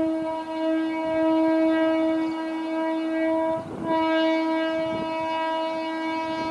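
Horn of an approaching Indian Railways electric locomotive, sounded in two long steady blasts, a short break between them about halfway through.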